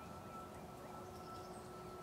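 Quiet woodland ambience: a low steady background hiss with a thin steady hum, and a few faint, scattered songbird chirps.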